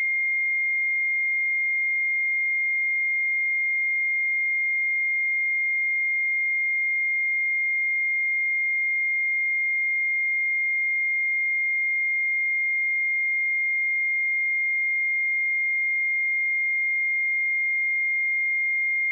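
A pure 2122 Hz sine-wave test tone, one steady unwavering pitch at constant level.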